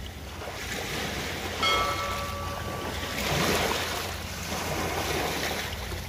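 Sea waves breaking and washing over a rocky shore, a steady rush of surf. About one and a half seconds in, a short ringing tone sounds over it and fades within about a second and a half.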